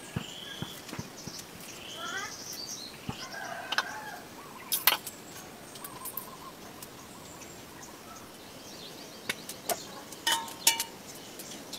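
Birds calling over steady outdoor background noise: short arching whistled calls in the first couple of seconds and scattered chirps later. A few sharp clicks or knocks stand out, one about halfway through and two close together near the end.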